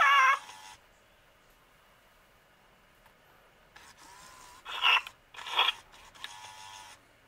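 Hasbro Furby Baby toy giving short electronic creature-like calls in response to touch: one just at the start and two more about five seconds in. Its internal mechanism whirs softly around the later calls.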